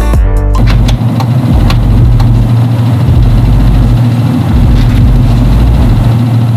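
Chevy Silverado pickup's engine idling, a steady low hum. A snatch of music ends just at the start.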